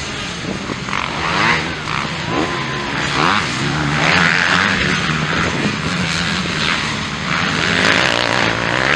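Several motocross dirt bikes racing, their engines revving up and dropping back again and again, overlapping one another.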